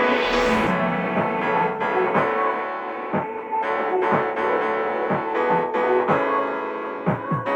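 Background music led by piano or keyboard, with a sweeping swish at the start.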